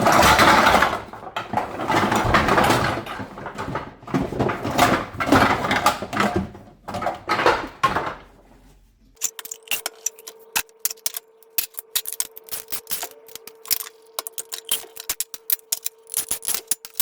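Scrap metal clattering and rattling as it is handled. About halfway through it gives way to a run of sharp clicks over a steady hum.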